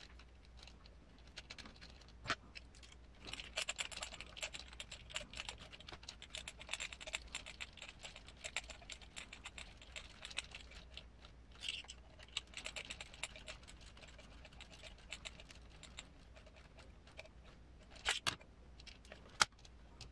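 Rapid, light clicking and rattling of small metal parts and hand tools being handled while working on an RC crawler's rear suspension, in two long runs, with a few sharper single clicks near the end.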